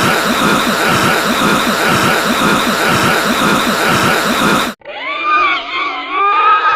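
Siren Fish creature sound effects. A harsh, distorted noisy drone with a pulsing beat of about three a second cuts off abruptly a little over four seconds in. A wavering, pitched wail with a bending tone follows it.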